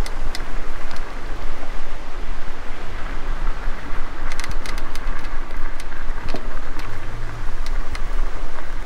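Wind rumbling and buffeting on the microphone of a handheld camera, with scattered clicks of footsteps on a dirt path.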